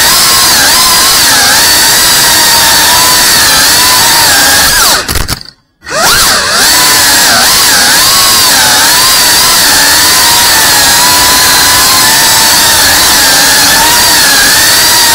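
FPV quadcopter's electric motors and propellers whining loudly, the pitch rising and falling as the throttle changes. About five seconds in the whine drops and cuts out briefly, then climbs back up.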